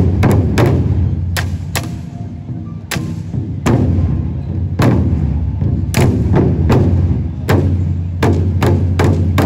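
An ensemble of large barrel drums struck with sticks in unison: single loud hits spaced about a second apart, then a quicker run of hits near the end, each leaving a low ring.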